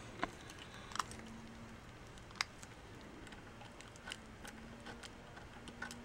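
Faint, irregular small clicks and taps from a utility knife and fingers working painter's tape around a badge on a drum shell, about half a dozen over a few seconds.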